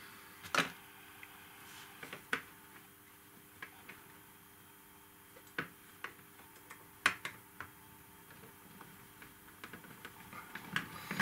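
Small clicks and taps of tiny scale-model parts being handled and pressed into place by hand, coming irregularly a few seconds apart with a quick cluster near the end, over a faint steady hum.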